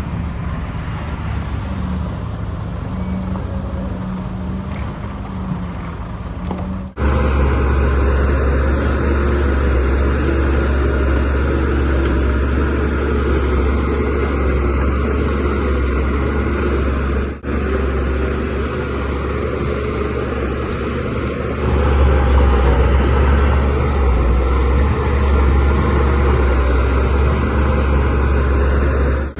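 Bulldozer's diesel engine running steadily with a deep drone. The sound changes abruptly about seven seconds in, becoming louder and deeper, with a brief dip a little after halfway.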